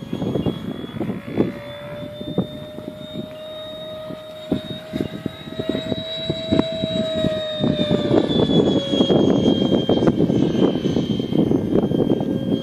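Whine of an RC L-39 jet's 90 mm Wemotec Midi Fan electric ducted fan with an inrunner motor in flight, its pitch rising slightly and then dropping a little past halfway as it passes. Wind buffets the microphone throughout, louder in the second half.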